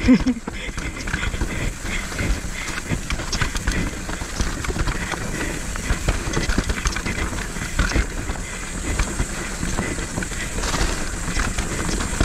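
Mountain bike rattling down a rough dirt trail: tyres over dirt and rocks, with a continuous clatter of chain and frame knocks and a steady low rumble.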